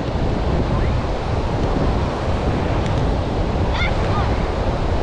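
Ocean surf washing steadily, with wind buffeting the microphone in a heavy low rumble. A few faint, short calls sound in the distance, most clearly about four seconds in.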